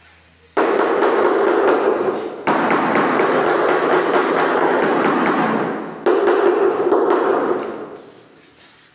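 Rubber mallet tapping rapidly on a large ceramic floor tile to bed it into the tile adhesive. It comes in three long runs of quick strikes, starting suddenly about half a second in and fading out near the end.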